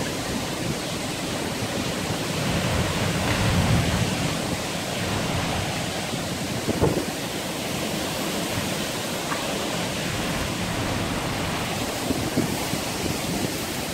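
Heavy rain and strong wind of a cyclone storm, a steady loud rush that swells about three to four seconds in.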